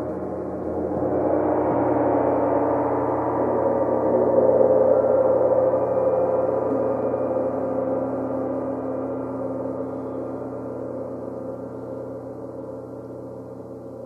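Rimless flat gongs played together in a dense, howling wash of many overlapping tones. The sound swells to its loudest about four to five seconds in, then slowly dies away.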